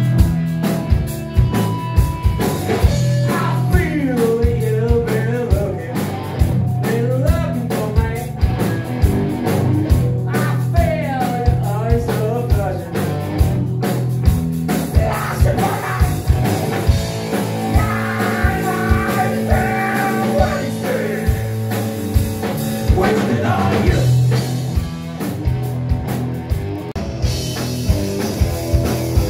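Live rock band playing loud: distorted electric guitars over a drum kit keeping a steady beat.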